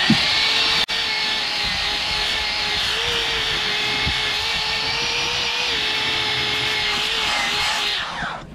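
Small electric detail sander running steadily on the cured epoxy filler of a sailboat's hull-to-deck joint, knocking down high spots. It spins up at the start and winds down near the end.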